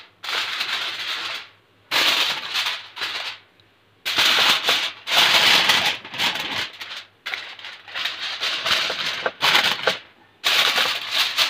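Aluminium foil crinkling and crackling as it is pressed down to cover a pan, in about six bursts of a second or two with short pauses between.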